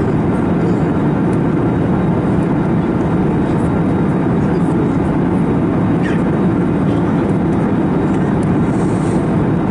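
Steady cabin roar of an Airbus A321neo in flight: an even, loud rush of airflow and engine noise with no change in level.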